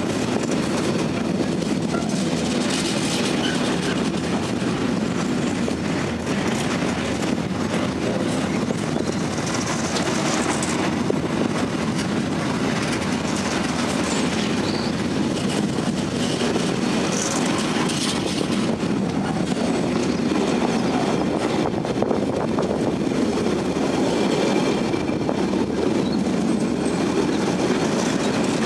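Intermodal container freight train passing close by, its wagon wheels making a steady loud rumble and clatter on the rails, with a few brief high-pitched squeals about ten and seventeen seconds in.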